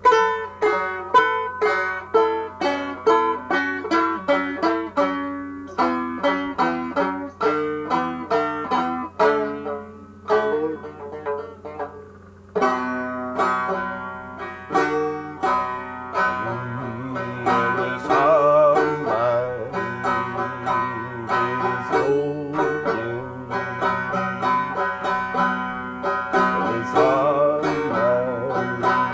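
Banjo played solo in an old-time blues style: a run of quickly picked single notes, a quieter stretch about ten seconds in, then fuller, denser picking with low notes added for the rest of the passage.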